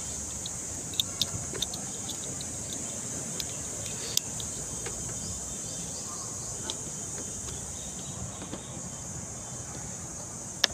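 A few short, sharp clicks and handling noises from a plastic strap buckle and scooter parts, the loudest about four seconds in, over a steady high-pitched hiss of insects.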